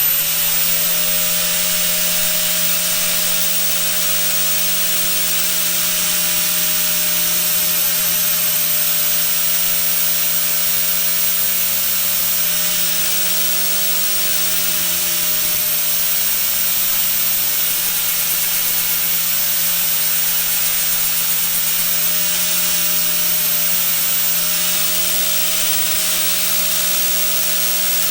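An electric power tool running steadily at constant speed, cutting or grinding a groove into a metal part. It makes a loud, even hiss over a constant motor hum.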